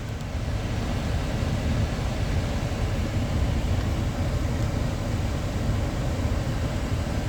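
Steady low rumble with an even hiss inside a Toyota Vellfire's cabin: the vehicle running at idle with its air-conditioning fan blowing.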